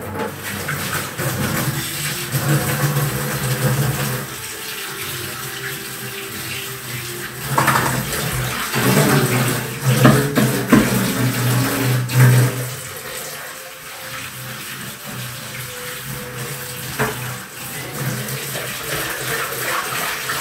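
Water running from a kitchen tap into the sink as things are rinsed, with a few clinks and knocks about halfway through.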